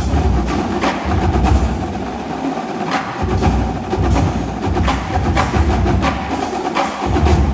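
Marching drumline playing loud, dense rhythmic drum passages with heavy low bass-drum hits, building to a final accented hit that cuts off right at the end: the close of a piece.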